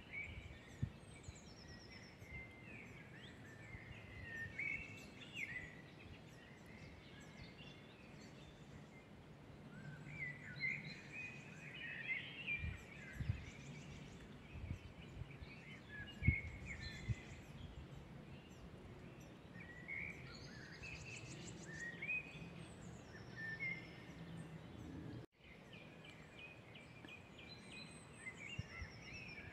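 Several woodland birds singing and calling at once: many short, varied phrases overlapping throughout, with a few high, thin trills, over a low rumble.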